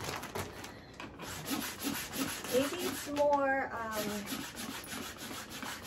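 Hand-operated plastic vacuum pump on a vacuum storage bag's valve, worked up and down in repeated rasping strokes as it draws the air out of the bag.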